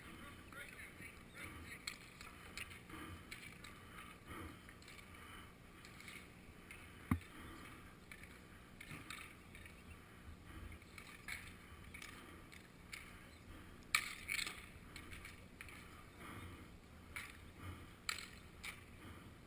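Faint, scattered clicks and knocks of roller hockey play on an outdoor concrete rink: sticks, puck and skates. A sharp knock comes about seven seconds in and another about fourteen seconds in.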